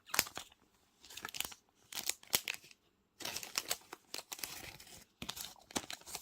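Trading cards being slid into thin plastic card sleeves: crinkling plastic and scraping card in several short bursts with brief pauses between.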